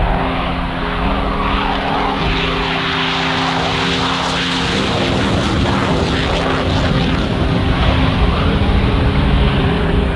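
Saab 35 Draken's afterburning turbojet running at full power as the jet takes off and climbs, a loud steady rush of jet noise. Held synth chords change underneath it.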